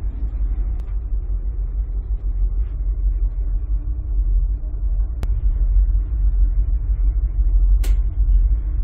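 Steady low rumble of a large car ferry under way, its engines and hull droning deep with a faint steady hum above. A few sharp clicks and a brief hiss about eight seconds in.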